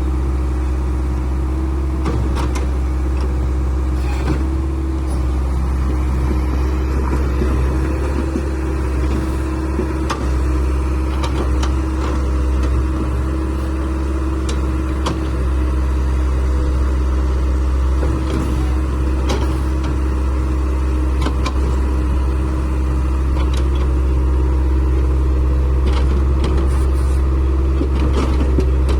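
Heavy construction machine's engine running steadily with a deep, constant hum, with scattered short knocks and clanks throughout.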